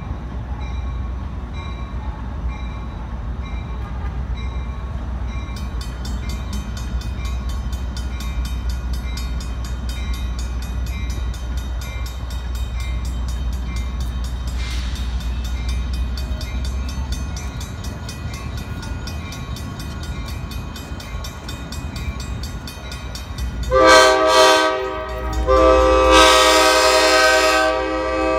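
Amtrak locomotive's multi-note air horn sounding near the end, a short blast and then a long one, as the train approaches a street crossing. Before it, a steady low rumble with a bell ringing rapidly and evenly.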